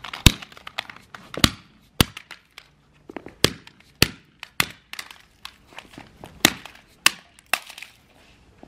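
A mallet repeatedly striking a plastic TV remote on concrete, smashing it apart: about a dozen sharp, irregularly spaced blows.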